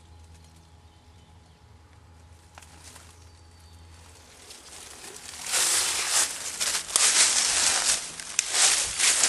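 Footsteps crunching and rustling through dry vegetation, loud and irregular, starting about halfway in; before that only a faint low hum.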